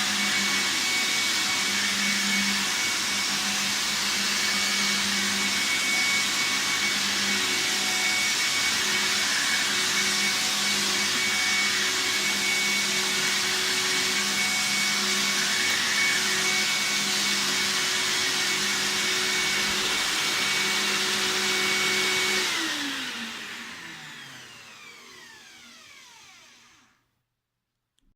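VAX T1300 upright vacuum cleaner running steadily with a high whine, then switched off about three-quarters of the way through, its pitch falling as the motor spins down to a stop.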